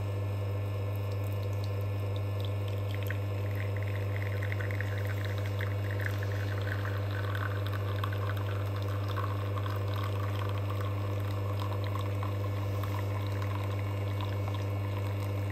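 Espresso machine pulling a shot: the pump hums steadily under 9 bar of pressure. From about three seconds in, espresso streams from the portafilter into the cup with a liquid hiss that falls in pitch as the cup fills.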